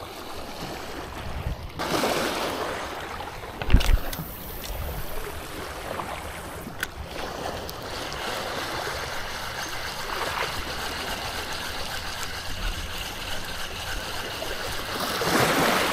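Sea water washing and lapping over seaweed-covered shore rocks, a steady rushing noise with a thump about four seconds in.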